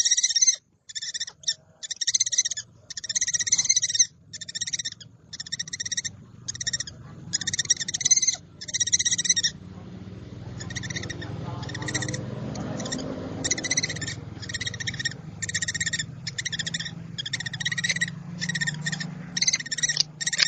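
Scops owl giving a steady run of short, harsh, rasping calls, about one to two a second. A low steady hum comes in underneath about halfway through.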